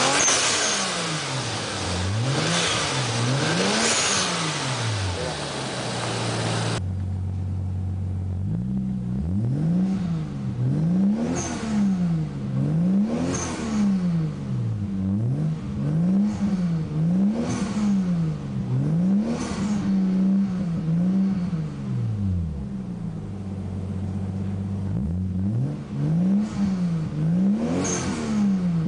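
Toyota 2JZ-GTE twin-turbo inline-six being revved in repeated blips, its pitch rising and falling about every two seconds. It sounds duller from about seven seconds in, and settles briefly to a steadier note before a few last revs near the end.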